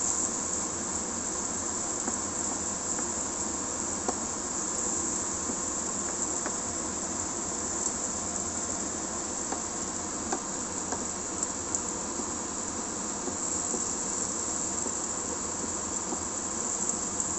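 Eggs with tomato and onion sizzling steadily as they fry in a nonstick pan, with a few light knocks and scrapes of a wooden spatula stirring them.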